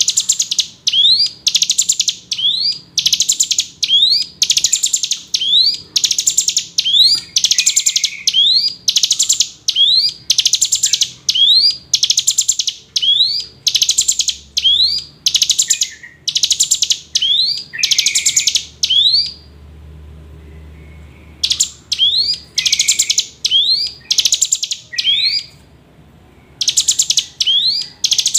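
Hill prinia (ciblek gunung) singing: loud, high phrases repeated about once a second, each a quick rising note followed by a dense buzzy trill, with two short pauses, one about two-thirds through and one near the end.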